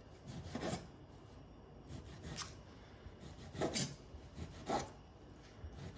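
Chef's knife slicing raw topside beef into thin strips on a bamboo cutting board: a few quiet, brief strokes of the blade drawing through the meat and scraping on the wood.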